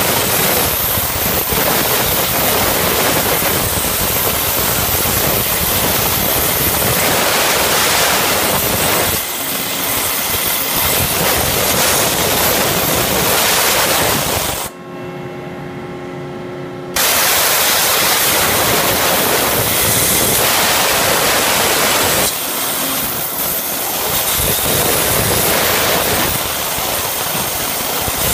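CNC waterjet cutter's high-pressure jet hissing loudly as it cuts through a plate. About halfway through, the hiss cuts out for about two seconds, leaving a quieter steady hum, then comes straight back on.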